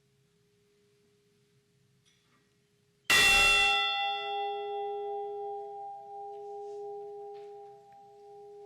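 A memorial bell struck once about three seconds in, tolled for a lost crewman. It rings on with a lower hum that pulses as it slowly fades.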